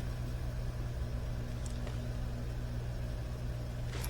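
Steady low electrical or machine hum of the room's background, with a faint light tick or two.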